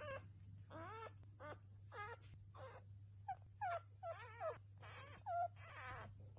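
Dachshund whimpering: a string of short, high-pitched whines, about two a second, some of them wavering in pitch, over a low steady hum.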